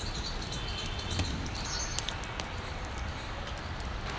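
Open wood fire crackling in a clay stove: scattered sharp pops and snaps over a steady hiss.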